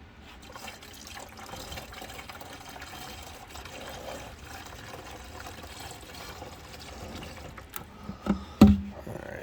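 Windshield washer fluid poured steadily from a plastic jug into the washer reservoir, emptying the jug. Near the end come a few knocks, the loudest a sharp thump about a second before the end.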